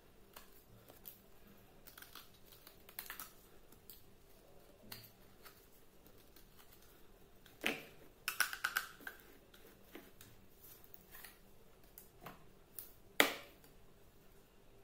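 Dry bar soap being carved with a snap-off utility-knife blade, then soap bars handled and set down: soft scrapes and small crumbly clicks, a louder flurry of clicks about halfway through, and one sharp knock near the end.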